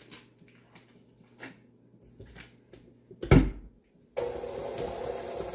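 Light handling clicks, then a loud thump as the tilt-head stand mixer's head is lowered onto the bowl, and about four seconds in the mixer's motor starts and runs steadily, creaming butter and sugar.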